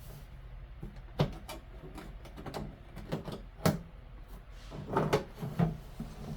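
A sewing machine's carrying case being opened by hand: a string of sharp clicks and knocks from its latches and lid, about eight of them scattered through.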